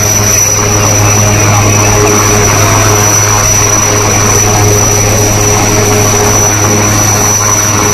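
Military helicopter hovering low, its rotor and turbine engines making a loud, steady drone with a steady high whine over it.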